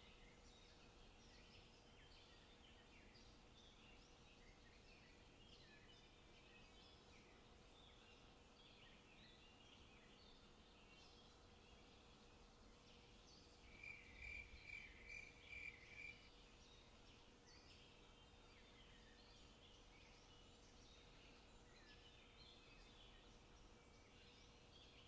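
Faint forest birdsong: many small songbirds chirping and twittering at a distance. In the middle comes a quick run of about seven identical clear notes from one bird, louder than the rest.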